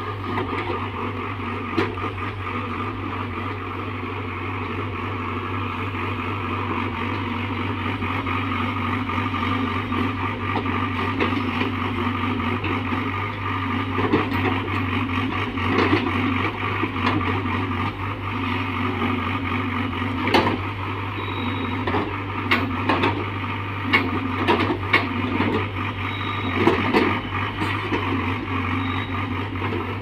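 Hyundai Robex 85A excavator's diesel engine running steadily under hydraulic load while digging soil, with scattered sharp clanks from the bucket and arm, more frequent in the second half.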